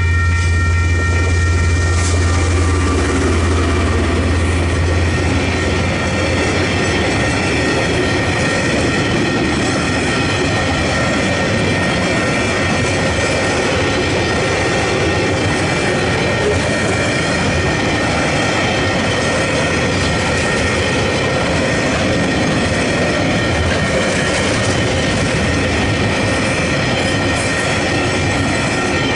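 Western Cullen Hayes electronic level-crossing bells ringing steadily while a train passes over the crossing. A deep engine drone is strongest in the first few seconds, then a continuous rumble and clatter of wagon wheels on the rails.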